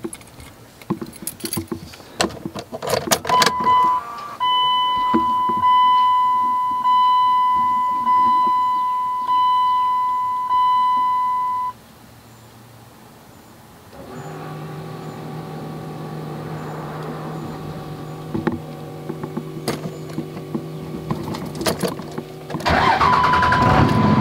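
In the cab of a 1999 Dodge Ram with a 5.9-litre Cummins turbodiesel: keys click in the ignition, a dash warning chime dings about six times, and a steady hum follows. Near the end the diesel cranks and fires, running much louder.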